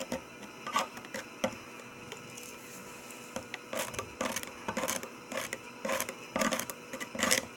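Plastic spoon stirring water in a clear cup, scraping and tapping against the sides and bottom in short, irregular strokes that come quicker in the second half: stirring the water-conditioning powder into the water for sea monkeys.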